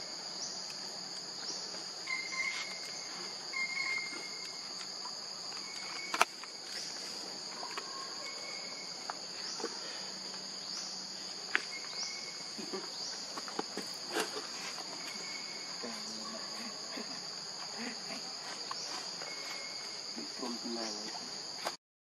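Steady high-pitched insect chorus, with short rising chirps repeating about once a second. A single sharp click about six seconds in.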